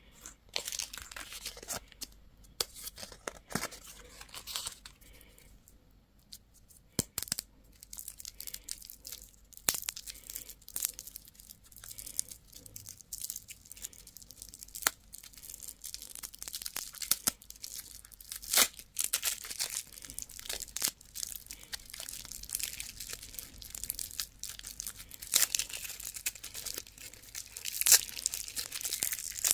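Candy wrappers being torn open and crinkled by hand in irregular sharp crackles, with a quieter pause about five seconds in.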